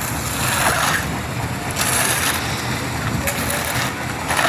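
Engine of a site concrete mixer running steadily, with short bursts of rough scraping and sloshing from wet concrete being handled, several times.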